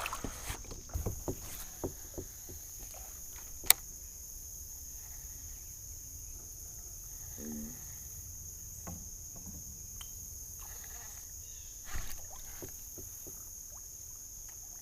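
A steady high-pitched drone of insects such as crickets, with scattered light knocks and clicks from handling in a kayak. The knocks are busiest at the start, with one sharp click a few seconds in and a duller knock near the end.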